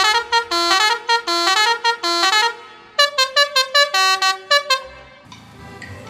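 Basuri musical air horn on a mini truck playing a tune of quick short notes in two phrases with a brief break between them, falling silent about five seconds in.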